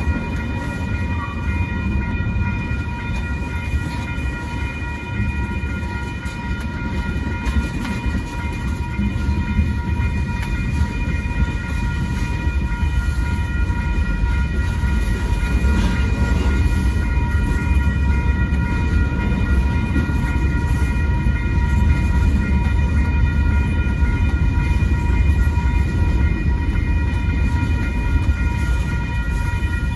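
BNSF manifest freight train rolling through a grade crossing, a heavy steady rumble that grows a little louder about halfway through. Over it the crossing's warning bell rings steadily and without pause.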